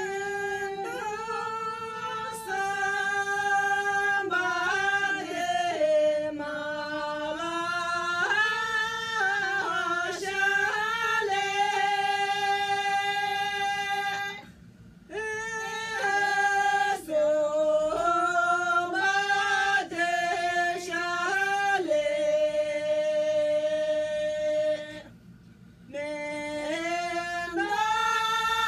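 Women singing a slow song together without accompaniment, in long held notes that step up and down. Two short breaks between phrases fall about halfway through and a few seconds before the end.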